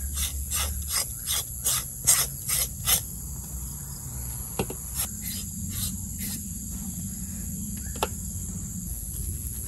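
Kitchen knife scraping along an eel's skin on a wooden chopping block: quick strokes about three a second for the first three seconds, then slower, scattered strokes. Crickets chirr steadily in the background.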